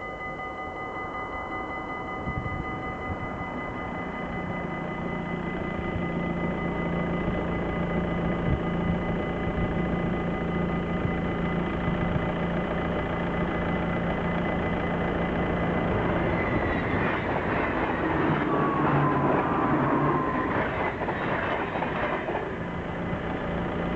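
Warning bells of a Dutch automatic half-barrier level crossing ringing steadily. Over them, an ICMm electric intercity train approaches and passes, its wheels clattering on the rails in the last few seconds.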